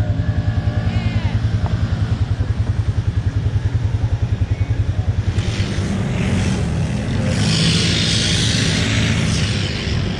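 An ATV engine runs with a fast, even thumping beat, about nine pulses a second. About five seconds in a loud rushing, splashing hiss rises over it, like water or mud being sprayed.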